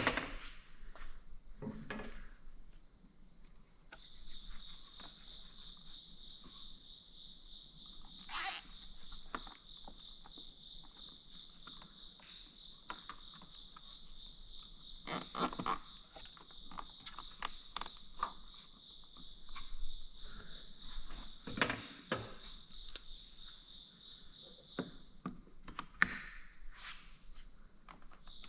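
Crickets chirping steadily in two high-pitched bands, with scattered clicks and knocks from hand work.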